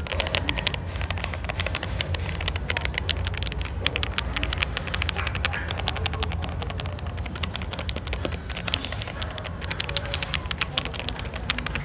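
Typing test on mechanical keyboard switches of unknown make, called Matcha: a fast, dense run of key clicks. The sound is small and light, without ringing or much rattle, crackly rather than deep, and a little higher-pitched than Gateron Pro Milky Yellow switches.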